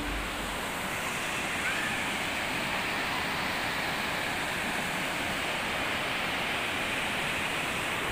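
Steady rush of water from a waterfall, an even continuous roar with no change.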